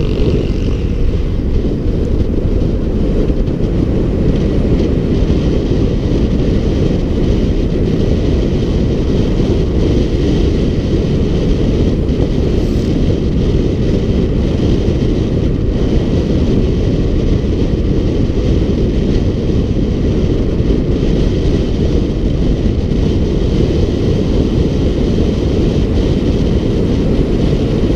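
Steady wind rumble buffeting the microphone of a bicycle-mounted camera as the bike rides at speed on an asphalt road.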